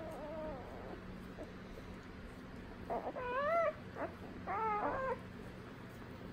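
Newborn Great Dane puppies squealing and whimpering: a faint wavering cry at the start, then two louder wavering cries about three and four and a half seconds in. A steady low hum runs underneath.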